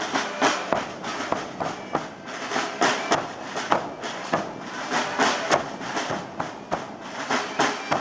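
Several Portuguese bombos, large rope-tensioned bass drums, beaten together in a fast, driving, unbroken rhythm of drum strokes.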